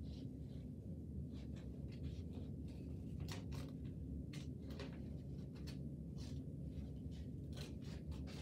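Scissors snipping through a sheet of paper: a series of short, crisp cuts at an irregular pace, with some paper handling, over a steady low hum.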